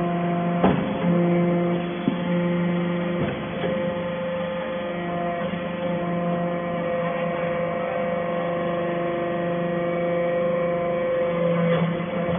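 Steady machine hum with several held tones, and a few sharp knocks in the first few seconds, from a hydraulic baling press for metal chips running.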